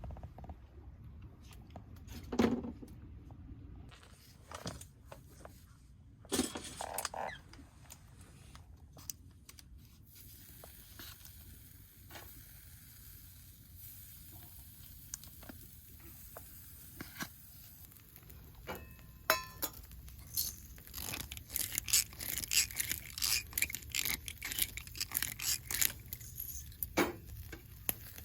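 Camp cooking preparation: scattered knocks, scrapes and rustling of packaging and utensils being handled. From about twenty seconds in comes a dense crackle, food starting to sizzle in a hot pan.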